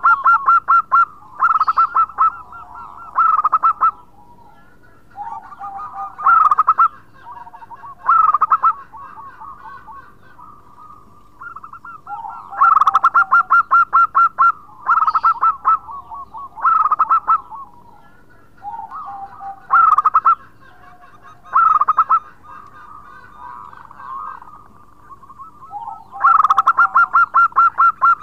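Zebra dove (perkutut) singing its cooing song over and over: loud phrases of quick, rattling coo notes joined by softer drawn-out coos, a phrase every one to three seconds.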